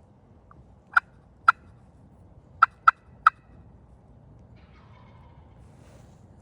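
Five short, sharp turkey clucks: two about half a second apart, then three quick ones about a second later.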